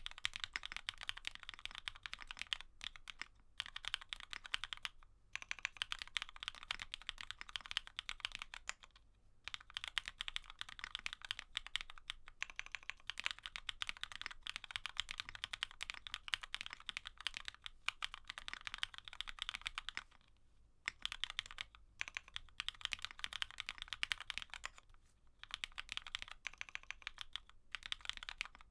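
Steady typing on a GEONWORKS F1-8K custom mechanical keyboard with an aluminium bottom, an FR4 plate in a Poron gasket mount, linear switches (Cherry black housings with Kailh cream stems) and CMK keycaps. A fast, even stream of keystrokes, stopping briefly several times.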